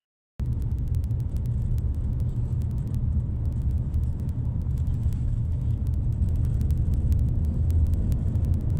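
Steady low rumble of a moving vehicle, with faint rapid clicks over it. It begins abruptly just under half a second in.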